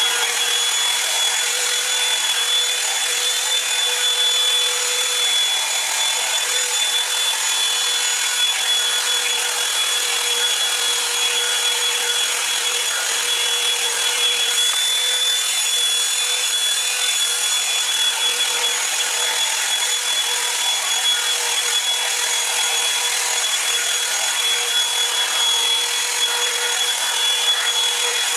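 Revlon One-Step hot-air brush dryer running steadily at its high heat setting, a constant airy rush with a high motor whine, while it is worked through hair.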